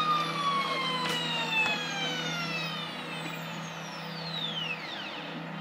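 Ultimaker 3 Extended feeder stepper motor whining as it drives filament through the Bowden tube during material loading, its several tones gliding steadily down in pitch as the feed slows, one dropping steeply near the end. A steady low hum runs underneath.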